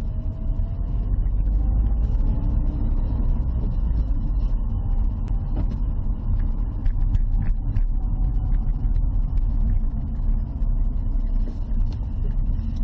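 Steady low road and engine rumble inside a moving Dacia Sandero's cabin, with light clicking rattles throughout and a faint rising whine in the first few seconds.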